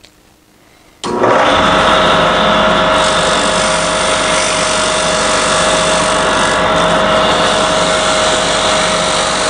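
A wood lathe starts suddenly about a second in and runs steadily, spinning a painted oak chair stretcher, with the hiss of sandpaper held by hand against the turning wood. The stretcher is mounted slightly off-centre, so the sanding doesn't work real good.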